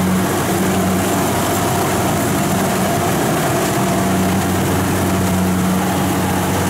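Kubota DC-70 combine harvester's diesel engine and machinery running steadily while cutting rice: a constant low drone with a steady hum over it.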